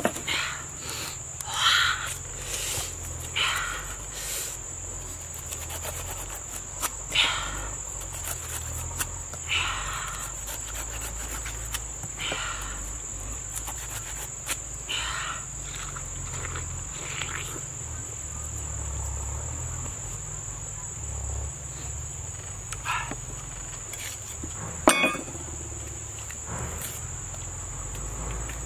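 Machete blade slicing and scraping the rind off a pineapple, a stroke every second or two through the first half, then fewer, with one sharp knock about 25 seconds in. Behind it, insects keep up a steady high drone.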